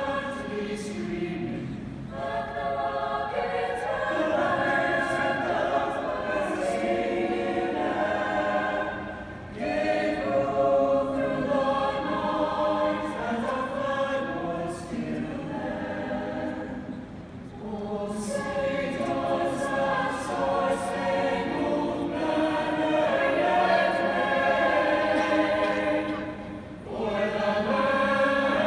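High school chamber choir singing, carried over a large arena, with brief pauses between phrases about 9, 17 and 27 seconds in.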